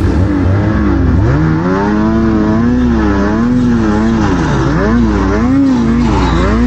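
Snowmobile engine being ridden through deep snow, its pitch rising and falling again and again as the throttle is worked.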